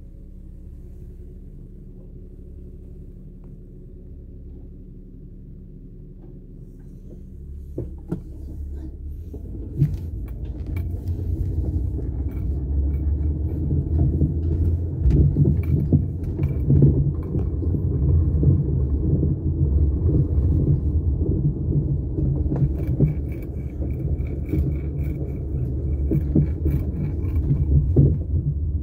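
A car heard from inside its cabin, idling with a quiet steady hum while stopped, then pulling away: from about eight seconds in, a louder low rumble of engine and tyre noise on the road.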